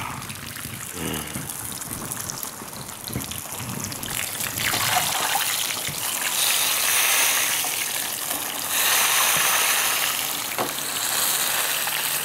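A whole fish deep-frying in a pan of hot oil, sizzling and bubbling steadily. The sizzle grows louder about four seconds in, as a slotted spoon stirs and moves the fish in the oil.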